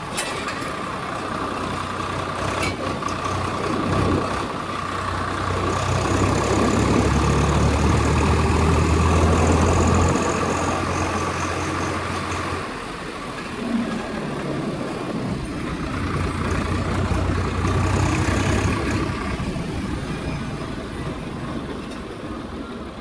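Tractor engine running with a deep rumble, getting louder for several seconds about a third of the way in, dropping back, then rising again briefly later.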